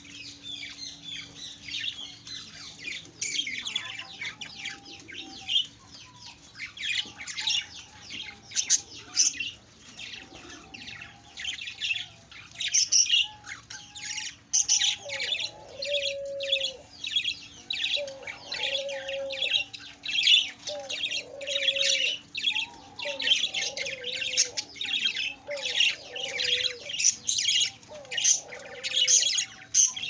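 A flock of budgerigars chattering: many quick high chirps overlapping throughout, joined from about eight seconds in by lower, wavering warbled calls.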